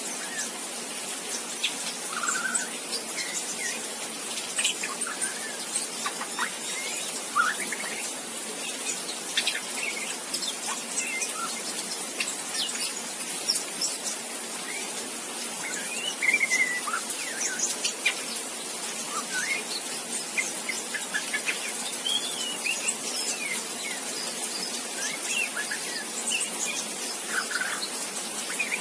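Juvenile white-rumped shama practising its early song: scattered short chirps and quick whistled slurs at irregular intervals, the halting "riwik" twittering of a young bird still learning to sing. A steady hiss runs underneath.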